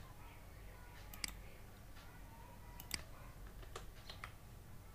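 Faint computer keyboard keystrokes and mouse clicks, about six short clicks spaced out singly and in close pairs, over a low steady hum.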